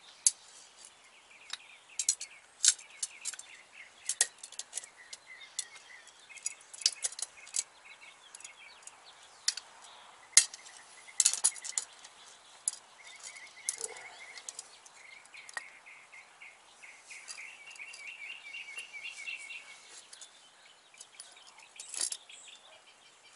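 Sharp metallic clicks and clinks from a hand tube bender and steel brake hard line being handled and worked, with a cluster of louder clicks about halfway through. Birds chirp in quick runs in the background.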